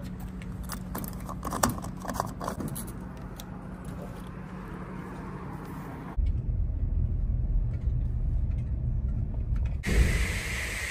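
Hand handling of a 2015 Nissan Rogue's fuel filler door and cap: a run of small clicks and light knocks over a steady hum. About six seconds in it cuts to a low, even rumble while the car is being refuelled at a pump, and near the end to a steady hiss.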